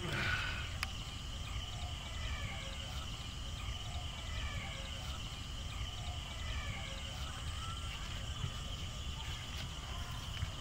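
Rural outdoor ambience: a steady high insect drone over a low wind rumble, with birds giving short falling chirps now and then.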